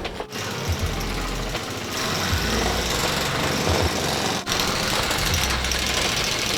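Background music over a montage, with a dense, busy texture and a few abrupt cuts.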